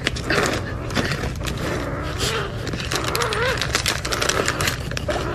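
A crinkly plastic cat-treat packet being rustled and pulled at by a kitten, giving rapid irregular crackling.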